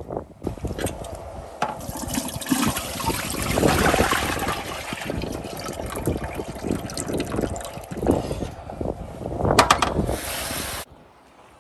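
Tap water running and splashing into a bowl as hands rub and stir fresh okra pods, with sloshing as the bowl is tipped to pour off the water. A louder splash comes near the end, then the sound cuts off abruptly.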